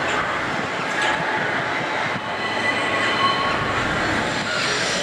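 Electric tramcar running along its rails: a steady rushing rumble of wheels on track, with faint thin squealing tones from the wheels now and then.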